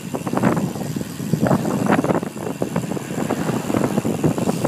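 Wind buffeting the microphone of a handheld phone on a bicycle coasting fast downhill: a loud, irregular, choppy rumble.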